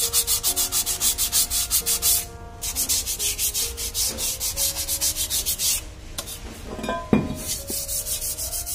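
Rapid back-and-forth abrasive rubbing on a brake part, like sanding or wire-brushing, in three runs of quick, even strokes with one sharp knock between the second and third. Soft background music plays underneath.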